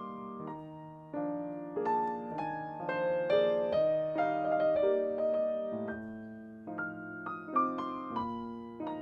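Solo piano playing a slow, gentle arrangement of a Christmas classic, a melody over soft chords with notes struck about every half second.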